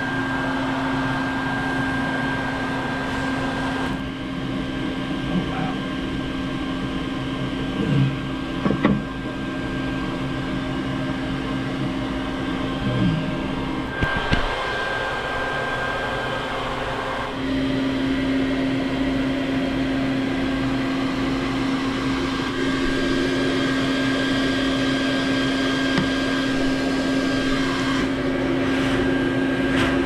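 Bee vacuum motor running with a steady hum while it draws up honeybees from exposed comb. There are a few knocks about eight to nine seconds in. The hum weakens around the middle and comes back strongly a few seconds later.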